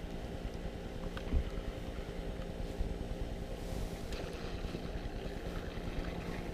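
Steady low hum of an engine or motor running, with a single brief knock about a second and a half in.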